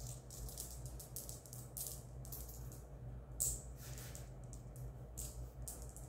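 Marbles clicking and rattling against each other in a bag as they are handled: a continual run of quick, sharp clicks, with one louder clack about three and a half seconds in, over a faint steady low hum.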